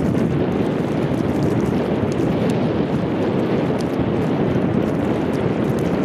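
Wind buffeting the microphone: a steady, loud rumbling rush with scattered faint ticks.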